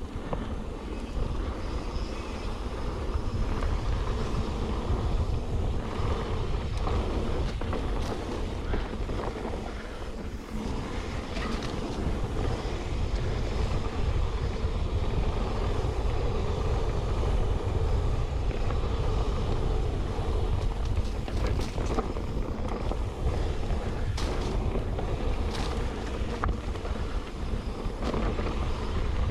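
Wind noise rumbling on the microphone of a mountain bike ridden fast along a trail, with scattered knocks mixed in. It rises about a second in and then holds steady.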